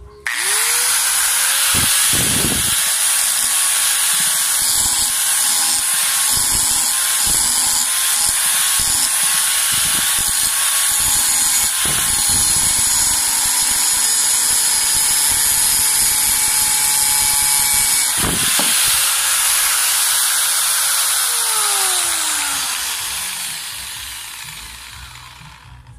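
Electric angle grinder, repaired for weak power by fitting a capacitor, switched on and spinning up to a steady running tone. It is touched briefly against a steel bar a few times, then switched off and winds down with a falling pitch near the end.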